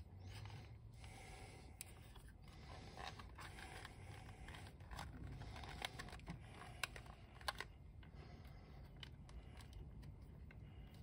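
Faint light clicks and scrapes of hard plastic toy-boat parts being handled and pressed together, with a few sharper ticks now and then.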